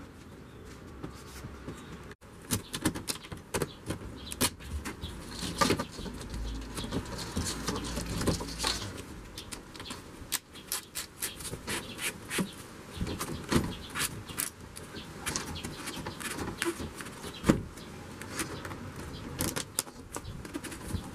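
Irregular light clicks and knocks of hands fitting fixings to polycarbonate roof sheets on a timber frame.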